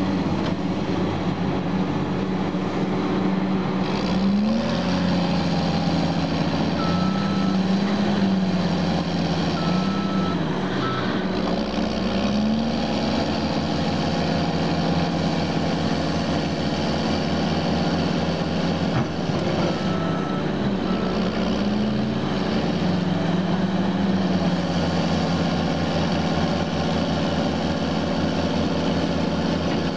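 Heavy diesel engines of a Caterpillar D6R bulldozer stuck in mud and an excavator working beside it, running steadily and revving up and down several times under load. A few short beeps from a machine's alarm sound briefly, twice in the first half and once after the middle.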